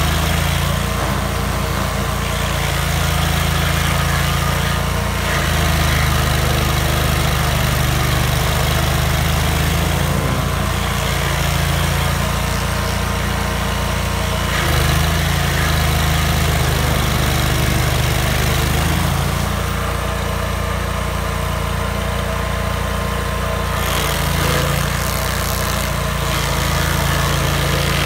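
Vermeer stump grinder's engine running steadily and loud, its pitch shifting up and down in steps every few seconds.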